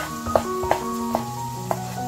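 A chef's knife chopping through smoked sausage onto a bamboo cutting board, about four knocks roughly half a second apart, over background music.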